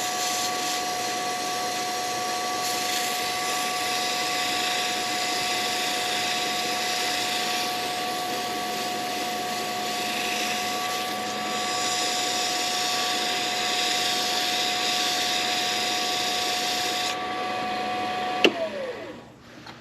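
Lathe motor running with a steady whine while 320-grit sandpaper hisses against the spinning pen blank, the hiss swelling and easing as the paper is worked. Near the end the sanding stops, then a click and the motor's whine falls as the lathe is switched off and spins down.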